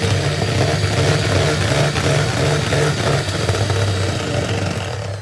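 Electric kitchen mixer motor running steadily at speed while mixing mayonnaise, switching off at the very end.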